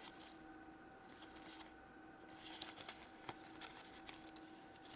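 Faint rustling and light ticks of toy play money being handled, over a faint steady hum.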